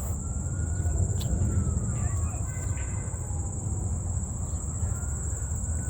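Insects droning in a steady, high-pitched chorus, with a faint siren wailing slowly up and down and a low rumble underneath.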